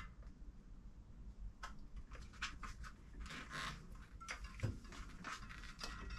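Faint, scattered handling noises: gloved hands rubbing and ticking a hydraulic brake hose and caliper against a bicycle's front suspension fork, with a soft knock about four and a half seconds in.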